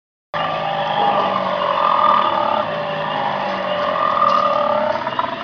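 A dinosaur growl sound effect played through a loudspeaker at a life-size dinosaur model. It is a long, low, continuous growl that starts a moment in and swells and eases slowly.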